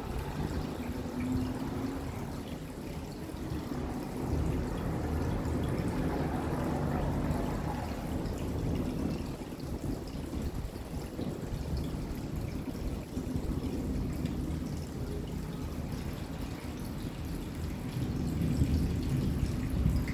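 Steady rain falling, with water trickling and dripping, at an even level that swells slightly now and then.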